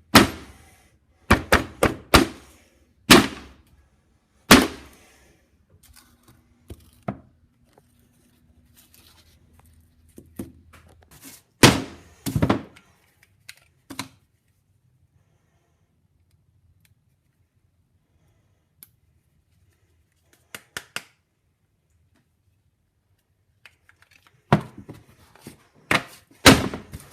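Irregular sharp knocks and clicks of hard objects being handled on a surface, several in quick clusters, with a long quiet stretch in the middle.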